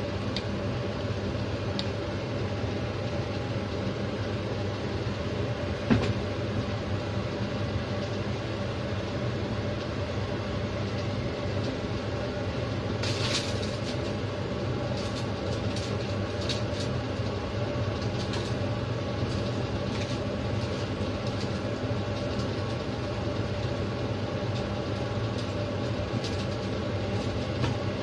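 Steady hum of an electric appliance motor running throughout, with a sharp click about six seconds in. Around the middle comes a brief crinkle of aluminium foil and a few light ticks as food is laid on a foil-lined tray.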